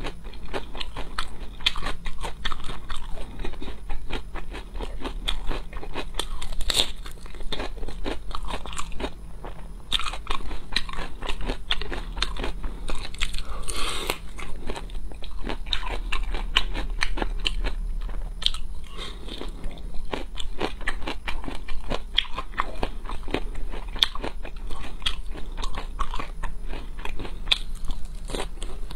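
Close-miked crunching and chewing of chili-seasoned lotus root slices bitten off a skewer: a dense, irregular run of crisp crunches, with a louder spell of biting about halfway through.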